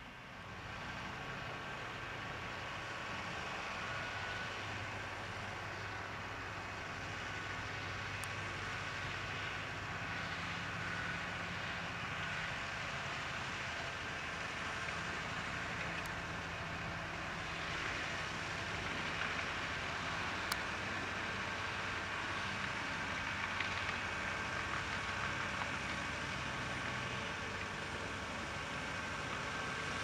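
Tractor diesel engine running steadily under load while ploughing, growing slightly louder toward the end.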